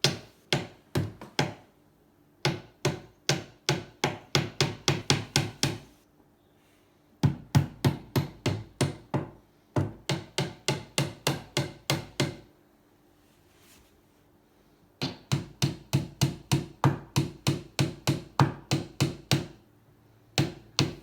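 A hammer striking over and over in runs of steady blows, about three a second, with short pauses between runs.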